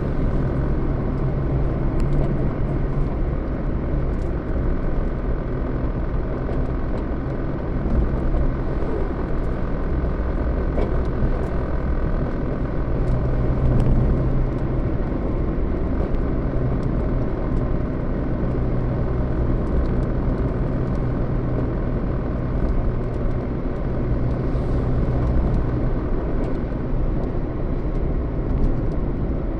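Motor vehicle on the move: a steady low engine hum over road rumble, the engine note rising and falling slightly.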